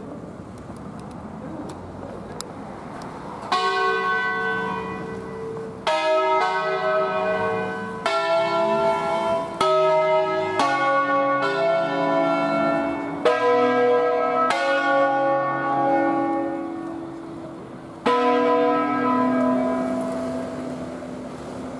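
Rope-rung church bells of a five-bell Barigozzi-cast ring, swinging in their wheels in the Ambrosian manner, striking one at a time on different notes. The first strike comes about three and a half seconds in, then strikes follow every one to two seconds, each ringing on and fading, and after a short pause a last one rings out near the end.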